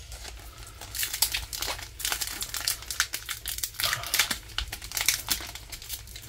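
Foil wrapper of a Pokémon trading card booster pack crinkling and crackling in the hands as it is handled and torn open across the top. The crackles come in quick irregular clusters, starting about a second in.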